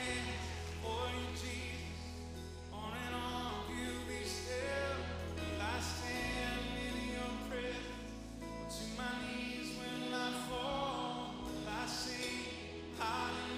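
Live gospel hymn music: a wavering melody line over sustained low accompaniment.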